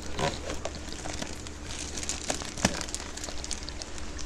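Large plastic fish bag crinkling and rustling as it is handled over a plastic tub, in irregular crackles with a sharper click about two and a half seconds in.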